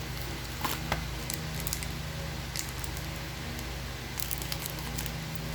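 Scattered rustles and light clicks of packaging being handled as a trading card booster box is opened, over a steady low hum.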